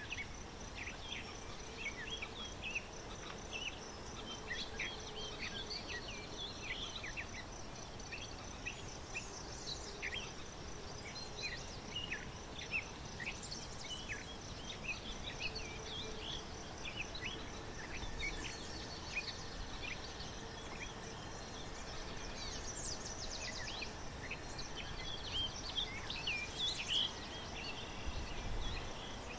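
Wetland ambience: many short, high chirps and calls from small birds come and go throughout, over an insect's steady, rapidly ticking high trill and a faint background hiss.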